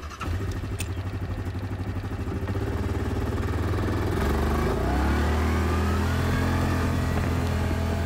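Yamaha ATV engine running as the quad pulls away, its note rising as it picks up speed about halfway through, then holding steady.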